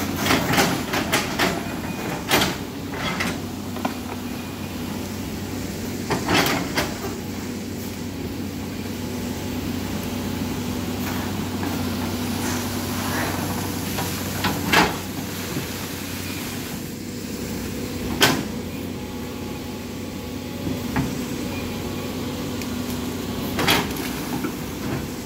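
Caterpillar 320D L hydraulic excavator's diesel engine running steadily under load while the bucket digs through mud, roots and branches, with sharp clanks and knocks every few seconds from the bucket and its linkage, several in quick succession at the start.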